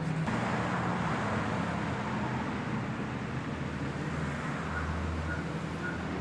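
Steady road-traffic noise: an even rushing hum of vehicles with a low drone underneath.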